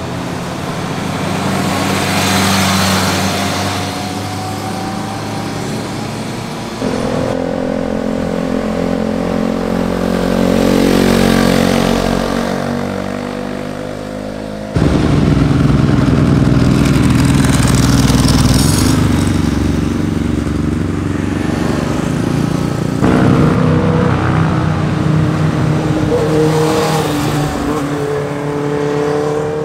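Sport motorcycles passing one after another through a tight corner, each engine's exhaust note rising and falling in pitch as the throttle is rolled off and opened again. The sound changes abruptly three times, about every seven to eight seconds, as one pass gives way to the next.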